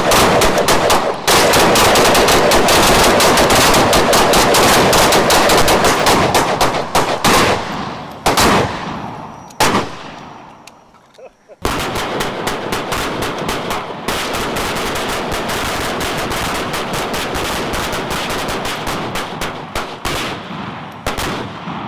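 Several rifles firing together in a rapid, overlapping volley, thinning to scattered single shots. After a short lull a second dense volley starts abruptly about twelve seconds in and thins out again near the end.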